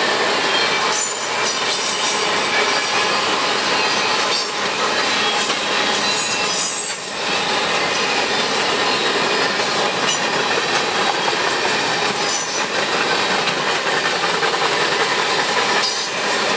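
Covered hopper cars of a long freight train rolling past: a steady rush of steel wheels on rail, with brief faint wheel squeals a few times.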